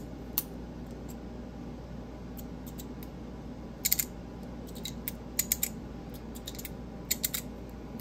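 Stainless steel magnet-and-spring fidget toy handled and worked, giving scattered sharp metal clicks in little groups of two or three, loudest about four seconds in.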